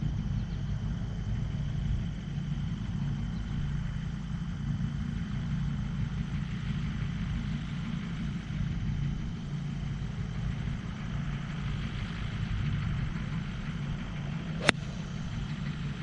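A single sharp crack near the end as a 3-iron strikes a golf ball off the tee, over a steady low rumble.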